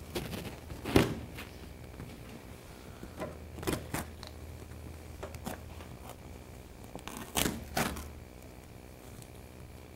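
A thick clear vinyl sheet being handled against a bare car door: scattered short crackles and knocks as it is pulled off the double-sided tape and pressed back flat, the loudest about a second in.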